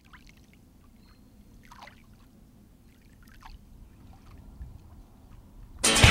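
Quiet lakeside ambience of gently lapping water, with a few faint high sounds that fall in pitch. Loud rock music with guitar starts abruptly near the end.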